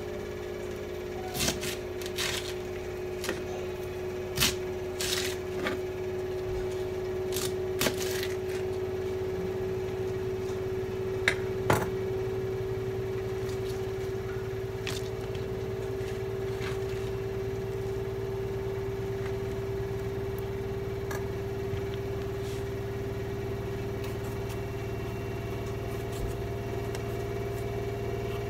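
Kitchen knife cutting vegetables on a cutting board: a scattered run of sharp knocks through the first dozen seconds, the loudest pair about 11 seconds in. Under it runs a steady appliance hum with a low drone and a mid-pitched tone.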